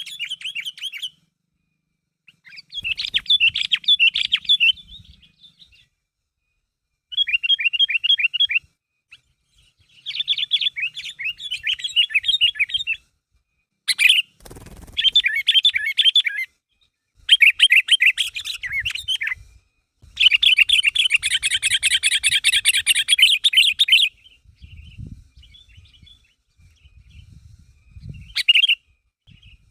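Sooty-headed bulbul singing vigorously in repeated bursts of rapid chattering notes, each phrase one to four seconds long with short pauses between them.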